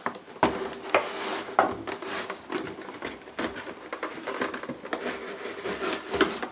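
Cardboard box and its packaging being handled: irregular knocks, scrapes and rustling as the box is slid across a wooden desk and the cooler is worked out of it.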